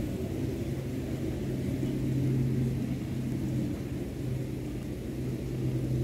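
Steady low hum with a constant low tone over a rumble, with no bird calls heard.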